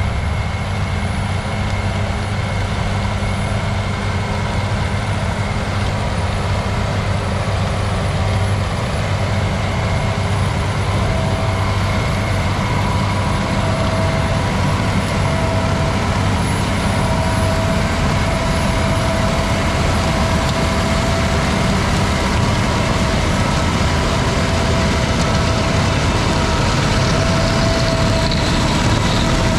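Massey Ferguson 8650 tractor's diesel engine running steadily under load while pulling an Alloway flail beet topper (defoliator) through the field, the machinery hum gradually growing louder.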